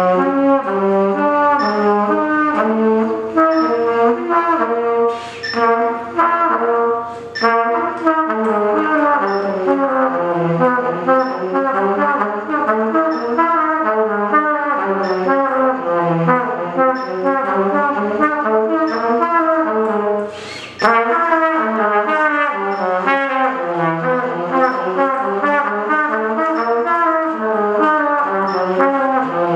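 Silver trumpet playing continuous lip slurs, gliding up and down through the partials in smooth wavy runs, with short breaths about five, seven and twenty seconds in. The player's own verdict is that the slur into each next partial is not yet smooth and that some air escapes at the embouchure.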